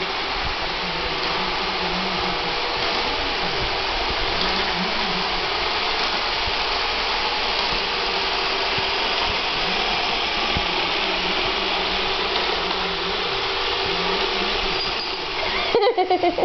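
Roomba robot vacuum running, a steady whirring drone. Near the end a dog breaks in with a quick run of short, loud barks.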